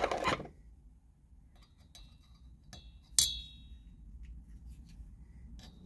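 Small metal engine parts and a tool being handled on a workbench: a few faint clicks, then one sharp, ringing metallic clink about three seconds in.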